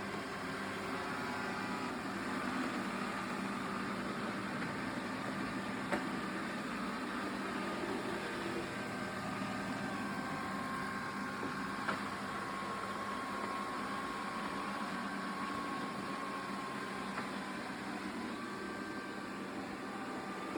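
Xiaomi S20 robot vacuum running mid-clean, its suction fan and brushes giving a steady whir with a faint whine, broken by two short clicks.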